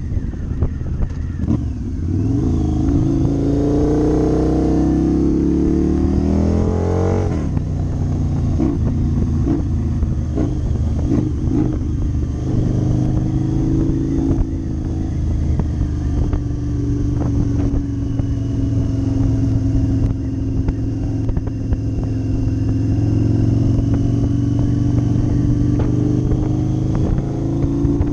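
Cruiser motorcycle engine pulling hard, its pitch climbing for about five seconds and then dropping sharply at an upshift about seven seconds in. After that it runs at a steady cruise with the pitch drifting gently, under constant rough noise on the microphone.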